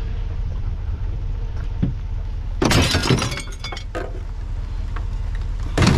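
Small scrap items crashing and clattering as they are tossed onto a pile: a longer clatter with trailing clinks about halfway through, and a second short crash near the end, over a steady low rumble.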